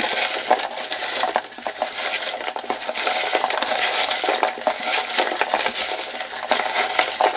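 Cut-out paper slips rustling and rattling as a hand stirs them around inside a small cardboard box to mix them: a dense run of small crackles and taps.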